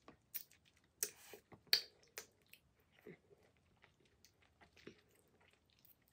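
Close-miked wet eating sounds of juicy orange slices being bitten, sucked and chewed: sharp smacking clicks, the loudest in the first two seconds, then softer chewing and smacks.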